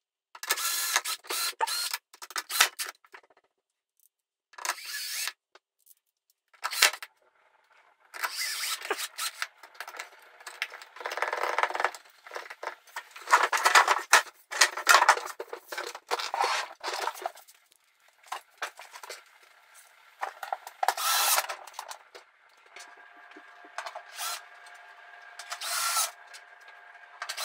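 Screwdriver work and handling of the M-Audio Hammer 88 keyboard's plastic casing and keybed during reassembly: irregular bursts of clicks, scrapes and rattles with short pauses between them. A faint steady hum comes in over the last few seconds.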